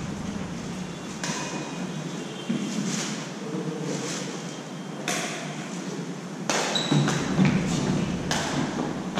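Badminton rackets striking a shuttlecock in a doubles rally: sharp hits about once a second, echoing in a large hall.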